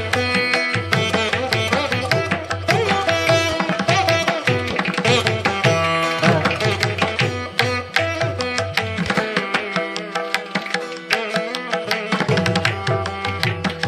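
Background music of Indian classical character: plucked string melody over tabla drumming with a steady beat.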